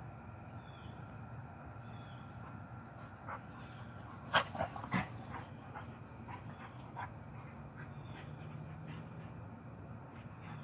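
Two dogs play-wrestling, giving a quick cluster of short barks and yips a little over four seconds in, with a few fainter ones just after.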